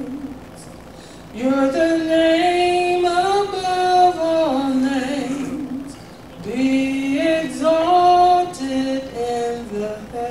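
A single voice singing a slow worship chorus unaccompanied, in long held notes with short breaks between phrases.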